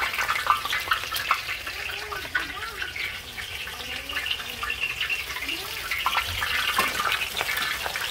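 Hot oil sizzling with fine crackling in a disco (plow-disc pan), with jalapeño, onion and garlic frying in it to flavour the oil before the fish go in.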